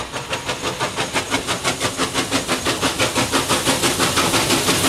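Norfolk & Western J-class 4-8-4 steam locomotive 611 working hard at speed, its exhaust chuffing in fast even beats, about six a second, getting louder as it comes up. Near the end the beats blur into a steady rush and hiss of steam as the engine passes close by.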